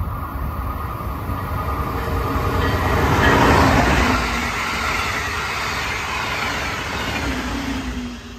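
Brightline passenger train passing at speed: the rush of its wheels on the rails builds to its loudest about three and a half seconds in, holds steady, then falls away near the end.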